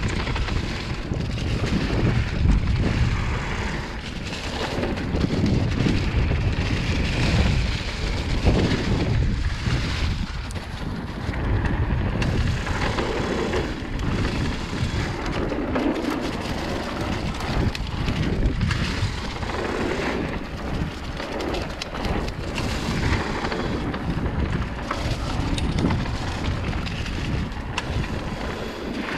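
Mountain bike riding down a leaf-covered dirt singletrack: tyres rolling over leaves, dirt and rocks, with frequent knocks and rattles from the bike over the rough trail, and wind rushing on the microphone.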